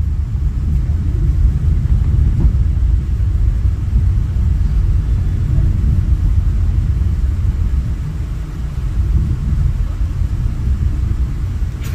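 MBTA commuter train running, heard from inside the passenger coach as a steady low rumble, with a short click near the end.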